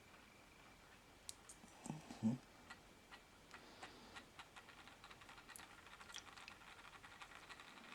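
Faint clicks and light taps of small diecast parts and tools being handled and set down on a workbench, with a louder soft knock about two seconds in.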